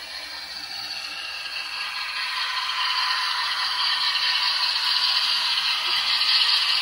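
N scale model locomotive and train running on the track toward the microphone. The motor whirs and the wheels rattle on the rails, getting steadily louder as it approaches.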